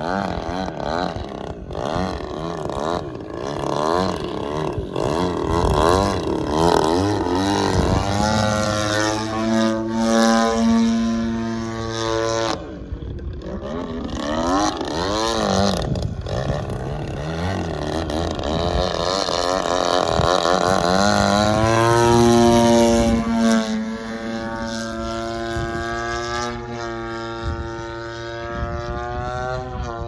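Two-stroke gasoline engine and propeller of a 91-inch RC aerobatic plane in flight, its throttle changing constantly. The pitch wavers quickly, holds high and steady for a few seconds twice, dips briefly about midway and settles lower near the end.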